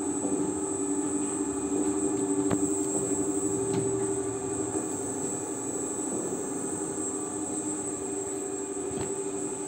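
A bank of small stainless-steel screw oil expellers running together while pressing black cumin seed: a steady mechanical hum with a thin high whine over it, broken by a few light clicks.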